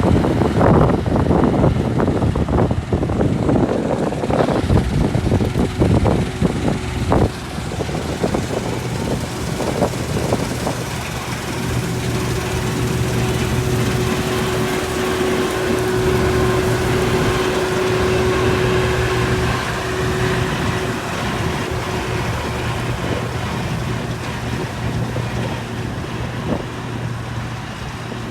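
An engine running steadily with a low hum, most likely farm harvesting machinery, with rough wind noise on the microphone during the first several seconds.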